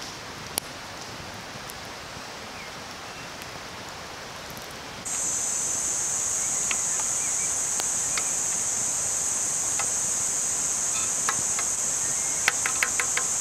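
Campfire ambience with a few faint crackling pops. About five seconds in, a steady high-pitched insect drone cuts in abruptly and becomes the loudest sound. Near the end come a quick run of sharp clicks.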